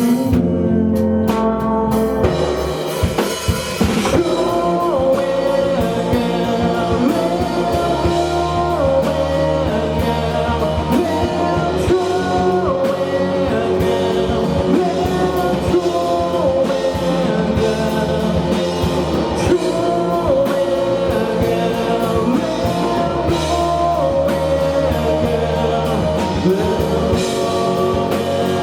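Live rock band with a singer: drum kit, electric guitars and bass playing under a sung vocal line of long held notes. After a brief break in the drums a couple of seconds in, the full band comes back in and the singing starts.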